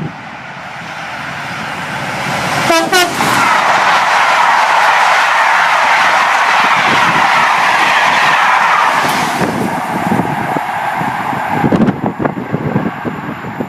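A train passing through the station at speed: its noise builds, a short horn toot sounds about three seconds in, then a loud rushing of wheels and air holds for several seconds before fading.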